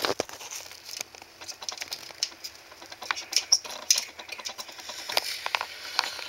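Irregular light clicks and taps of a disassembled Xbox 360 controller's plastic parts and circuit board being handled.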